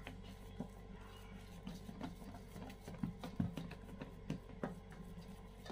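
Faint, irregular soft taps and squishes of a hand pressing and patting minced chicken kebab mixture flat in a steel bowl, over a steady low hum.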